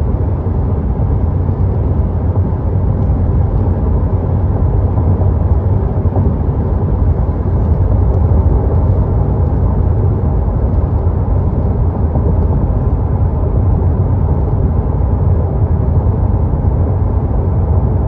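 Steady low drone of a Corvette C8 Stingray's 6.2-litre LT2 V8 and its tyres, heard inside the cabin while it cruises at highway speed at low revs in eighth gear.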